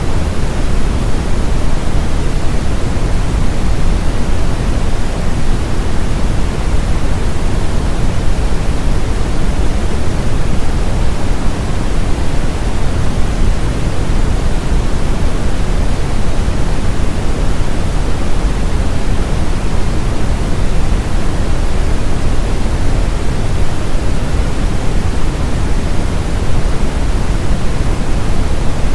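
Synthetic brown noise: a steady, even hiss weighted towards the low end, with no changes or events, played as a masking sound for tinnitus.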